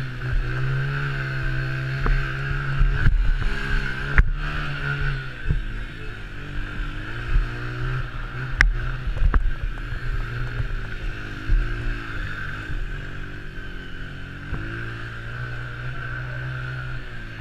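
Honda TRX90 mini quad's small single-cylinder four-stroke engine racing on a dirt track, its pitch climbing and dropping over and over as the throttle is opened and shut through the corners and straights. A few sharp knocks cut through.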